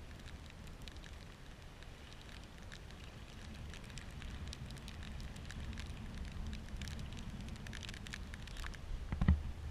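Small waves lapping on a shell-and-gravel shore, with a fizzing crackle of water washing through the shells, over a low steady rumble. A couple of louder knocks near the end.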